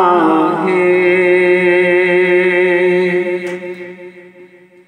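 A man's unaccompanied voice singing a naat, drawing out the last syllable of a line as one long held note: it slides down at the start, holds steady, then fades out near the end.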